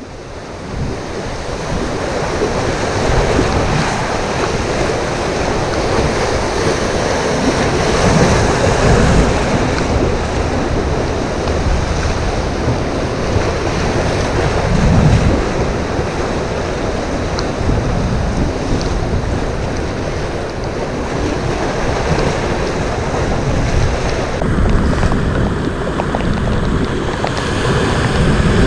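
Rough sea breaking against the shore in big waves, with steady wind buffeting the microphone.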